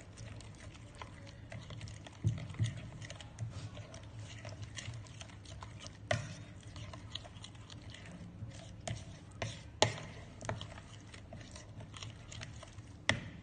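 Stirring a thick yogurt-and-spice tandoori marinade in a bowl: soft wet squishing with irregular clicks and knocks of the utensil against the bowl.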